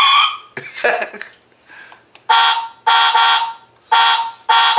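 Wireless doorbell receiver playing one of its ring tones. A steady electronic note ends about half a second in, then from about two seconds in come four buzzy, alarm-like beeps in an even rhythm, a little over one a second.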